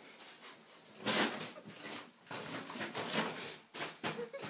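Rhodesian ridgeback whining and moaning softly, with breathy huffs. It is the appeasing greeting of a dog with a bad conscience.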